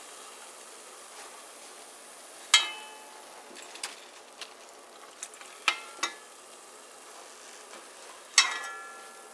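Vegetable pakora frying in a pot of hot oil with a steady, faint sizzle, while a metal spoon clinks against the pot several times, each clink with a short ring, the loudest near the end.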